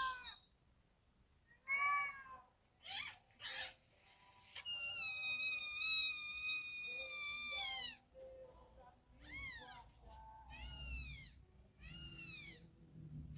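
A cat meowing repeatedly. There are three short meows, then one long drawn-out meow of about three seconds, then three meows that rise and fall near the end.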